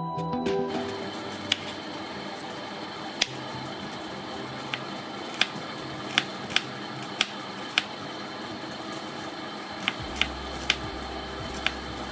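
Chef's knife slicing a small onion on a wooden cutting board: about a dozen sharp knocks of the blade against the board at uneven intervals.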